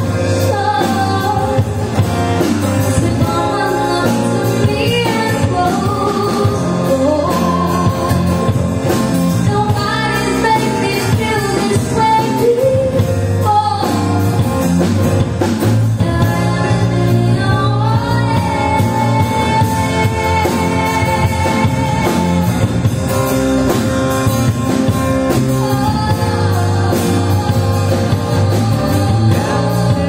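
A live band playing a song: a woman singing lead over electric and acoustic guitars and a drum kit.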